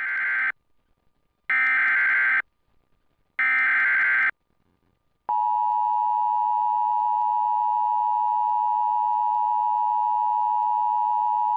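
Emergency Alert System start of message, relayed through a TFT EAS 911: three short screeching SAME header data bursts about a second apart, then about 5 s in the steady two-tone EAS attention signal (853 and 960 Hz). This is the signal that a new alert, here a severe thunderstorm warning, is about to be broadcast.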